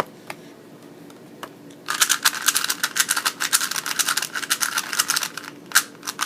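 A Rubik's cube being turned fast in a speed-solve: its plastic layers clicking and rattling in a quick, dense run of about three and a half seconds, starting about two seconds in. A few single clicks come before the run and after it.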